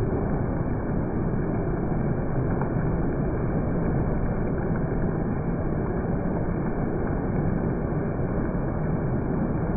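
Heavy monsoon rain falling steadily, an even rushing hiss of rain on the road and ground.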